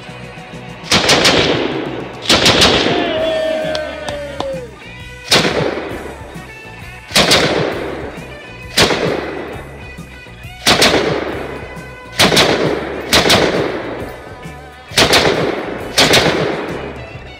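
Rifle firing about ten single shots, one every second or two at an uneven pace, each crack followed by a short echo.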